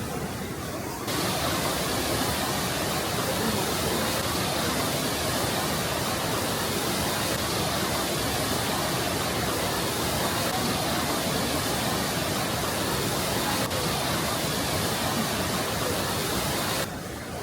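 Waterfall: a steady, loud rush of falling water that starts suddenly about a second in and cuts off near the end.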